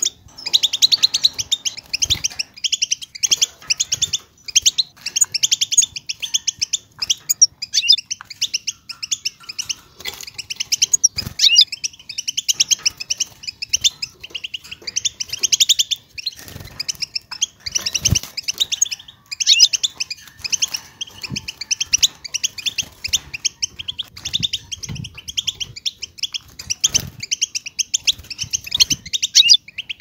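European goldfinch singing: a fast, unbroken stream of twittering and trilling notes, with a couple of brief breaks. A few soft low thumps sound now and then.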